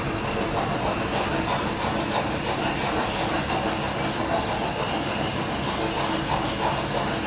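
Steady machine hum and whir from an Amada YAG laser welding robot cell while the robot arm moves the welding head over the work.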